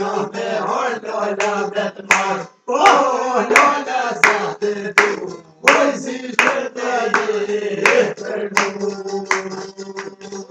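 Men singing a song together to a strummed çifteli, the Albanian two-string long-necked lute, whose steady drone runs under the voices. Handclaps keep time about every 0.7 s from about two seconds in.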